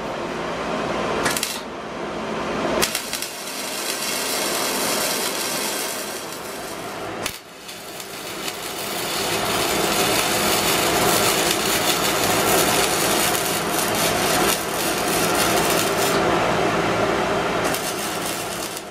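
Electric arc welding on steel roll-bar tubing: a continuous crackling hiss in long runs. The arc breaks off briefly a few times, about one, three and seven seconds in.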